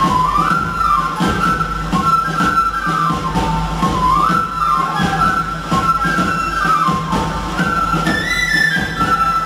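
Andean Qhapaq Chunchu dance music: a flute plays a winding, stepwise melody over a steady drum beat.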